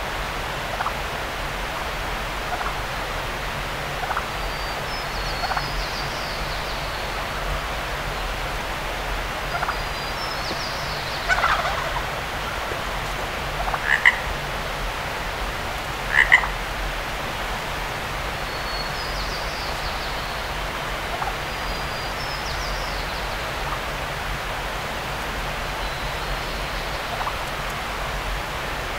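Short croaking animal calls every second or two, three louder ones near the middle, mixed with brief high bird chirps over a steady hiss.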